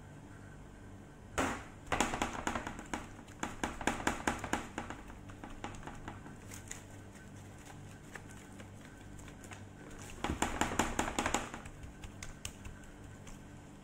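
Plastic-gloved hand rubbing seasoning into raw chicken: quick wet squishing and crinkling of the glove on the skin, in two bouts, a longer one starting about a second in and a shorter one near the end.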